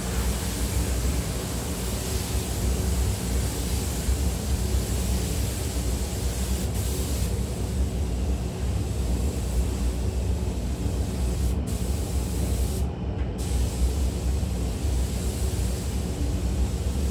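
Steady rushing air with a low rumble, as from a spray booth's ventilation running; the high hiss cuts out briefly twice, near the middle.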